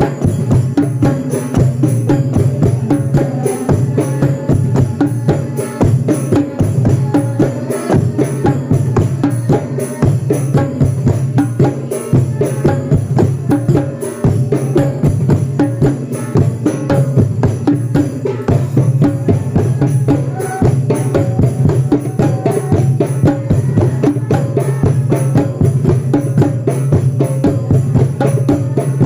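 Percussion music: drums and jingling percussion played in a fast, steady rhythm.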